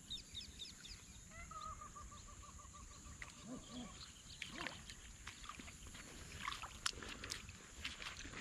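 Birds calling over open wet fields: quick high chirps at first, then one bird repeating a short note rapidly, about six times a second, for a couple of seconds. From about halfway, footsteps on wet grass.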